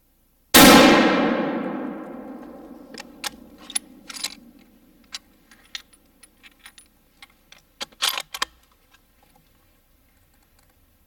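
A single rifle shot about half a second in, its report echoing through the woods and dying away over about two seconds. A scatter of short sharp clicks and knocks follows over the next several seconds.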